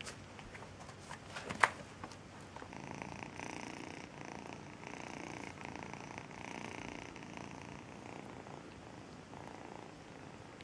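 Kitten purring in a repeating pulse, strongest from about three to eight seconds in, after a single sharp click about a second and a half in.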